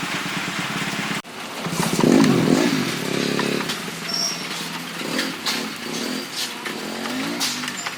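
Royal Enfield Bullet 350 Electra's single-cylinder engine running, cut off by a sudden break about a second in. After it come irregular engine sound and short clicks.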